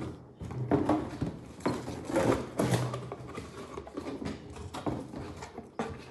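Cardboard box, papers and plastic wrapping being handled and packed away: a series of irregular rustles and soft knocks.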